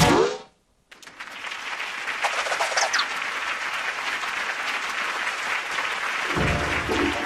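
Audience applause that starts about a second in, swells and then holds steady. A short cartoon voice sound comes just before it, and music comes in near the end.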